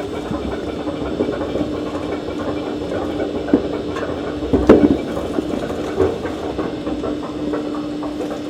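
Nowicki (Noma) W-280 industrial meat grinder running with a steady hum, with a few sharp clunks around the middle.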